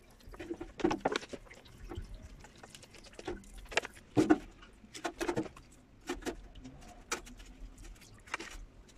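A thin stream of liquid squirted from a plastic bottle over chainsaw parts, splashing into a sheet-metal tray, with irregular taps and knocks of the parts being handled over the tray; the loudest knock comes a little past the middle.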